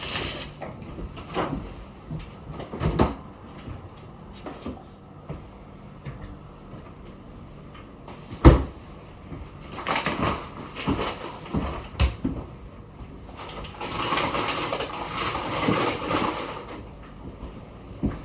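Handling noises: scattered knocks and rustling, with one sharp thud about eight and a half seconds in.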